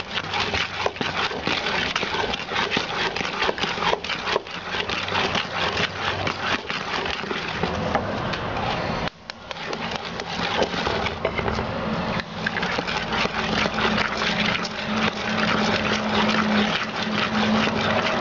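Wooden spoon beating thick cake batter in a metal bowl: a fast run of scraping, slapping and knocking against the bowl. It breaks off briefly about nine seconds in, and a low steady hum runs under the second half.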